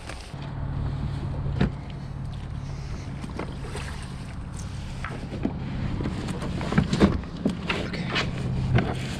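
A kayak on the water with wind on the microphone and water noise. A steady low hum runs underneath, and a few sharp knocks sound, one near the start and a couple toward the end.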